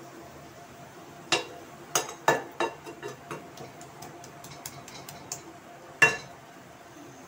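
A steel spoon knocks and scrapes against a pan of minced meat. There are a few sharp clinks between about one and three seconds in, then lighter ticks, and one loud ringing clink about six seconds in.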